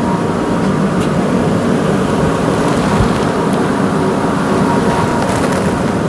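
A steady, loud rumbling noise that does not change, with a faint steady tone and a few faint clicks.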